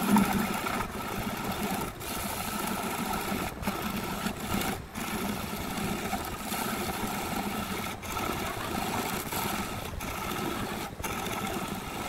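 Wood lathe spinning a wooden blank while a hand-held turning tool cuts into it: a steady hiss of wood being cut over the lathe's running hum, broken by several brief dropouts.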